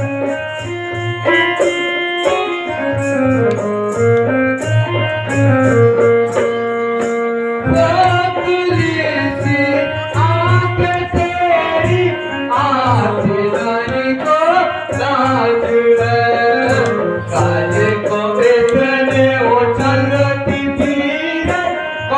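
Instrumental music: a held melody line over a steady hand-drum beat, an interlude between sung lines of a song.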